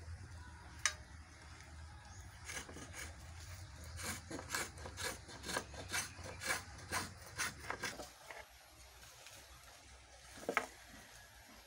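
Hand tool scraping and rasping along the wooden body of a carved sungka board, in quick repeated strokes at about three a second for several seconds. There is a sharp knock about a second in and another near the end.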